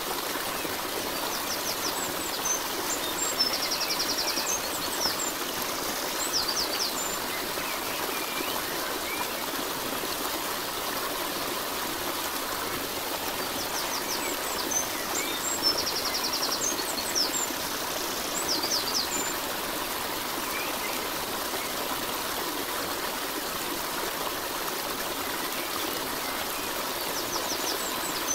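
Steady rushing of running water, like a stream, with birds chirping and trilling in short high calls at intervals. The same bird calls come back about every twelve seconds, as in a looped nature recording.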